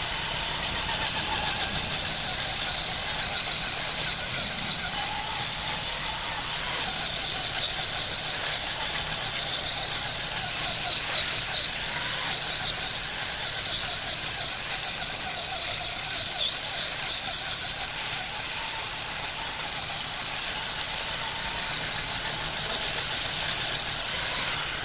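Machinery running steadily for the whole stretch, with a high whine that wavers in pitch.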